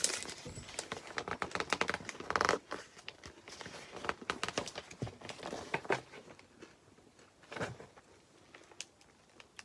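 Close-up chewing of a crunchy chocolate bar with cereal crispies: crisp crackles and clicks, dense for the first few seconds and thinning out later.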